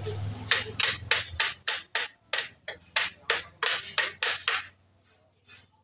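A hammer striking metal in a quick run of about fourteen sharp blows, roughly three or four a second, stopping about four and a half seconds in.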